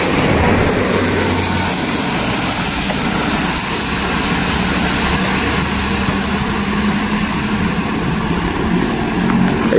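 Steady street traffic noise, heard while riding along a wet road, with a low engine hum.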